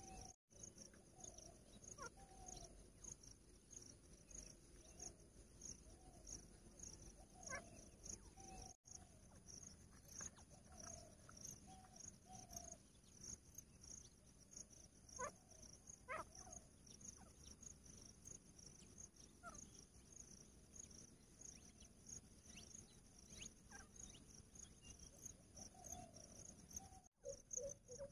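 Faint field insects: a cricket-like chirp repeating in an even, steady pulse over a constant high hiss. Now and then there are soft, short low clucks, which fit the caged grey francolins.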